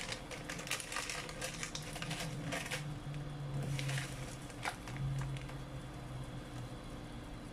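Plastic instant-noodle wrapper crinkling and rustling as it is handled and emptied, in several short bursts, over a steady background hiss.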